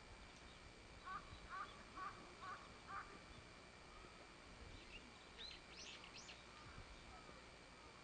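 A crow cawing five times in quick succession, about two caws a second. A few short, high-pitched small-bird calls follow near the middle.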